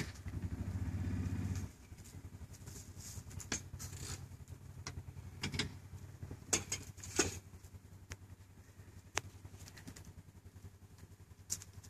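Utility vehicle engine running with a steady low hum, louder for about the first second and a half, then dropping to a low idle. A few faint knocks and clicks come through over the idle.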